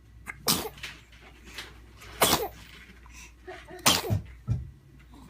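A baby sneezing three times in a row, about every second and a half to two seconds, each sneeze a sharp burst with a short falling voice.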